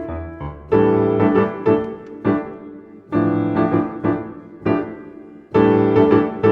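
Piano music: chords struck and left to ring, one every half second to a second in an uneven rhythm.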